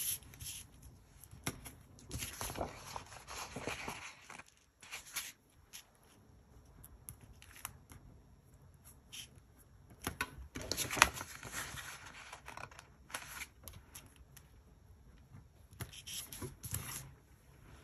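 Soft paper rustling and crinkling with light ticks and taps as small star stickers are picked up and pressed onto a planner page lying on a crinkly sheet. The rustling is loudest in a short flurry about 11 seconds in.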